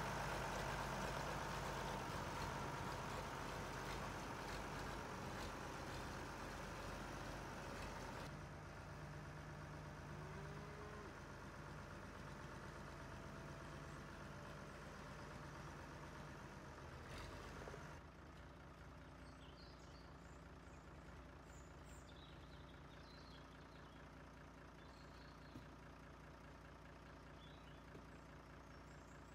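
County four-wheel-drive tractor's diesel engine running at low revs while the tractor manoeuvres, growing fainter in steps as it moves off.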